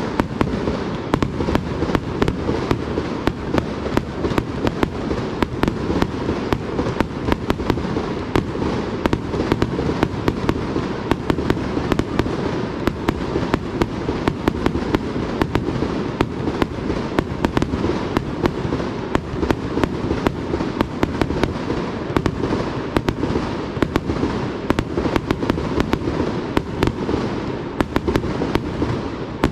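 Fireworks display: a dense, continuous barrage of aerial shell bursts, sharp bangs following one another in quick succession over a steady low rumble and crackle.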